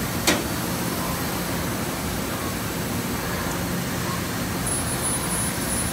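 2001 Cincinnati FTV850-2500 vertical machining center running, a steady whir of its drives and pumps as the spindle head travels. There is a sharp click about a third of a second in, and a thin high whine starts near the end.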